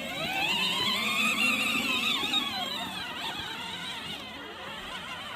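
24-volt electric ride-on toy car's motors whining as it drives up a hill under load. The pitch rises over the first two seconds, then sags and the whine fades as the car slows.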